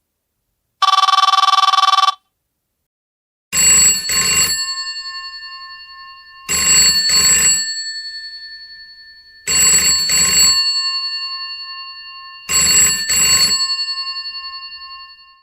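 A short burst of an electronic telephone ring, then a telephone's mechanical bell ringer giving four double rings about three seconds apart, the bell tone fading slowly after each one.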